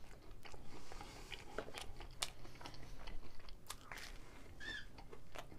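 Chewing and crunching a slice of homemade pineapple pizza, the crust giving irregular crisp crunches with each bite.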